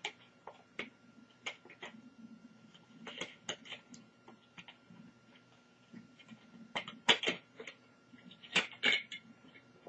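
Scattered light clicks and taps of a thin metal shield panel being slid and pressed into place inside a laptop, bunched into a few small clusters.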